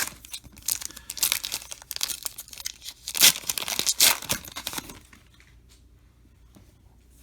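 Foil trading-card pack wrapper being torn open and crinkled, a dense crackling for about five seconds before it dies down.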